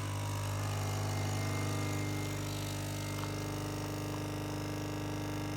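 Nespresso capsule coffee machine's pump running while it brews coffee into the cup: a steady, even buzzing hum.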